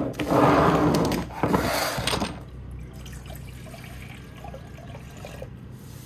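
Water poured from a plastic jug into a saucepan, splashing and running into the pot. It is loudest over the first two seconds, then softer.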